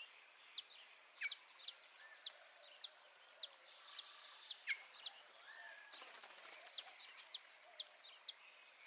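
Faint outdoor birdsong: a small bird repeatedly gives short, very high chip calls that sweep sharply downward, about two a second, with a few softer, lower calls from other birds in between.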